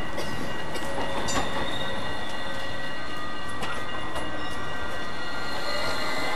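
Articulated low-floor city tram running over street track, its wheels squealing in several steady high tones. Sharp clicks from the rails come about a second and a half and about three and a half seconds in.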